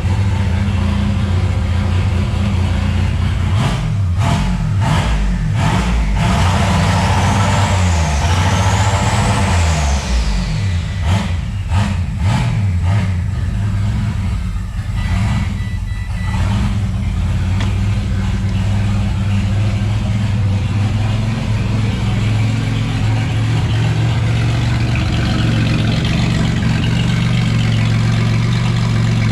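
Turbocharged car engine running, revved several times in the first dozen seconds with a high whistle rising and falling around eight seconds in, then settling to a steady idle.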